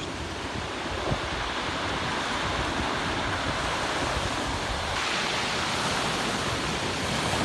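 Ocean surf washing on the shore in a steady rush, growing slightly louder and brighter about five seconds in, with wind noise on the microphone.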